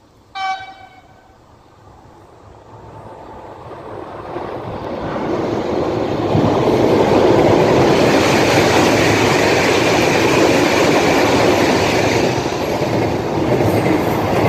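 A train horn sounds once, briefly, about half a second in. Then the noise of a passing train builds over several seconds to a loud, steady rumble and rattle of wagons.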